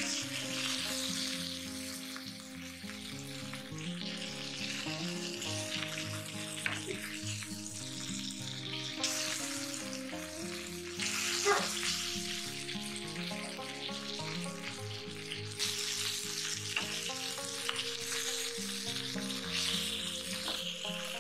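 Oil sizzling steadily around a marinated chicken breast frying in a grill pan, with soft background music underneath.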